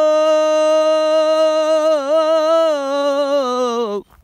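A man singing a Turkish folk song (türkü) unaccompanied, holding one long note that wavers about halfway through and slides down just before the end.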